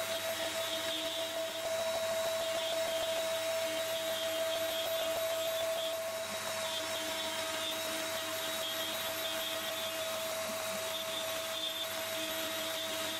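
Euro-Makers Aureus 3X hobby CNC router's spindle running with a steady high whine over a rushing hiss, its 6 mm end mill cutting the excess padauk inlay down flush with the end-grain board, 3 mm per pass at 600 mm/min.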